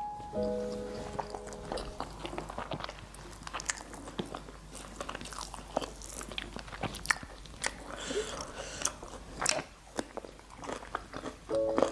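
Close-up eating sounds: irregular wet chewing and crunching of food in the mouth, with many small clicks and smacks.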